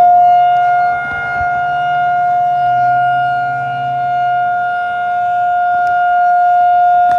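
Federal Signal 2001-SRN electromechanical tornado siren sounding a steady tone at full speed. Its pitch holds while its loudness slowly fades and swells again as the rotating siren head sweeps around.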